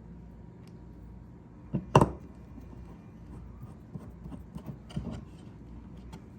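Small parts and tools being handled at a workbench while a router base plate is screwed on: one sharp knock about two seconds in, then a few light taps and clicks, over a low steady hum.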